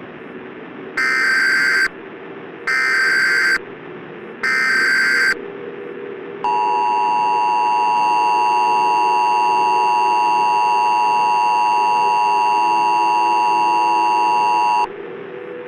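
Emergency Alert System signals: three short bursts of warbling SAME header data tones, each about a second long with a brief gap between them, then the long steady two-tone EAS attention signal lasting about eight seconds, all over a low steady drone.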